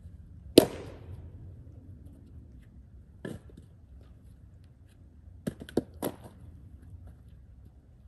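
A splitting axe striking a firewood round about half a second in, one sharp, loud crack of the wood. Lighter wooden knocks follow: one just after 3 s and a quick run of three around 5 to 6 s.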